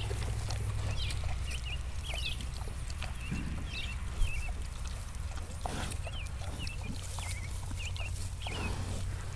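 Sows and piglets foraging on pasture, with a couple of short rushing snuffles from rooting in the grass, among many short high chirps.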